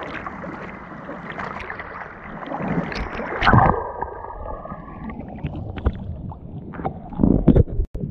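Creek water rushing and splashing over a riffle, right against a camera held at the water's surface, with louder splashes about three and a half seconds in and again near the end.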